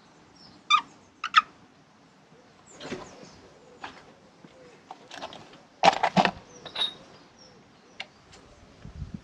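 Scattered sharp clicks and knocks of hands handling parts and hoses on a motorcycle engine during a repair, with a few loud clicks about a second in and a quick cluster of them about six seconds in.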